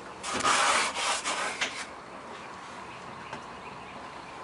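Rubbing and scraping handling noise for about a second and a half, from a hand moving right at the camera near a refrigerator's wire shelf, followed by a few faint clicks.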